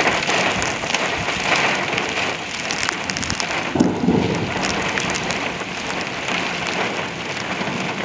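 Heavy thunderstorm rain pouring down, with many sharp drop hits close to the microphone. A brief low rumble comes about four seconds in.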